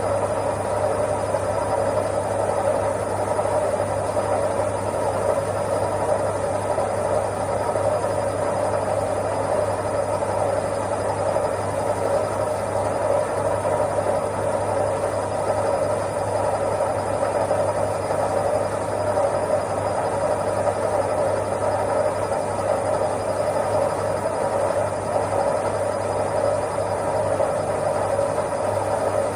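Washing machine running with a steady, unchanging hum.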